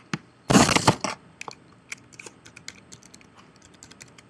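A short rustling burst about half a second in, followed by an irregular run of light clicks and taps, like keys or a pen being tapped.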